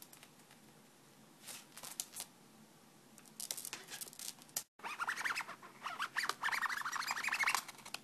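Conure chattering in a quick run of short chirping notes from about five seconds in. Before that there is light scratching and rustling.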